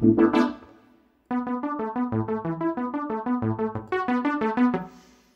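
Casio Casiotone CT-S400 keyboard playing a synthesizer tone through its arpeggiator on the 'Skip Down' pattern: quick, evenly repeating notes stepping through held chords. One run fades out about a second in, and after a short gap a new run starts and goes on until it fades just before the end.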